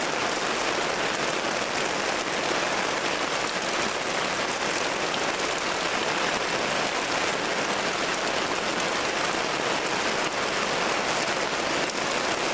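Steady rain falling, an even hiss with fine patter and no letup.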